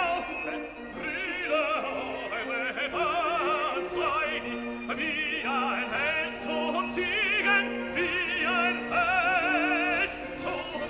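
Opera music: a solo voice singing with strong vibrato over classical accompaniment.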